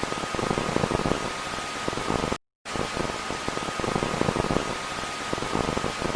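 TV static sound effect: a steady hiss of white noise with a faint high steady tone in it. It cuts out to silence for a moment about two and a half seconds in, then resumes.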